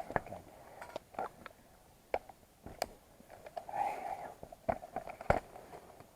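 Scattered sharp clicks and knocks at irregular intervals, the loudest about five seconds in, with a faint distant voice around the middle.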